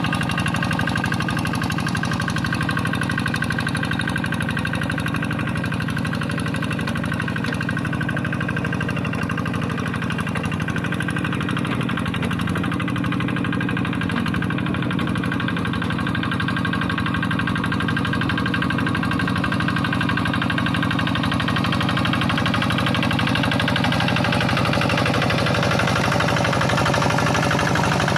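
Quick G1000 hand tractor's Kubota single-cylinder diesel engine running steadily, growing slightly louder over the last few seconds.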